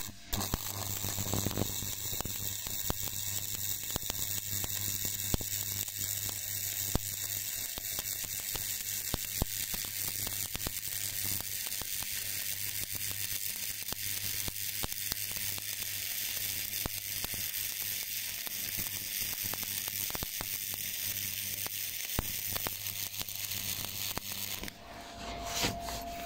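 Manual stick (MMA) welding arc laying a fillet weld with a stainless-steel electrode: the arc strikes at the start and crackles steadily over a low hum, then breaks off near the end.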